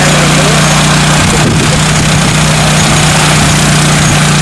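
Rotors of a T20 agricultural crop-spraying drone humming loudly with a strong steady low tone. From about a second in, the tone wavers and breaks up for about three seconds as the drone comes down and sets down on the grass.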